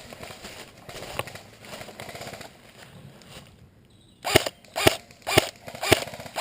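Airsoft rifle firing five sharp semi-automatic shots, about two a second, starting a little past the middle after a quiet moment.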